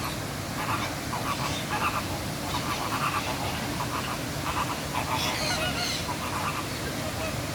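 Scarlet macaw giving a run of short calls, about two a second, over a steady low background rumble.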